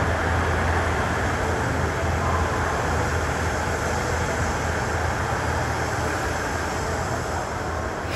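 JR East electric train at the platform, running noise: a steady low hum under a rushing rumble, easing slightly toward the end.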